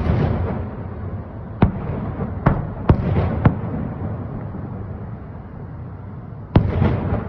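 Aerial fireworks salute: sharp bangs of shells bursting at irregular intervals, a quick run of three about halfway through and a loud one near the end, with a rolling rumble and crackle between them.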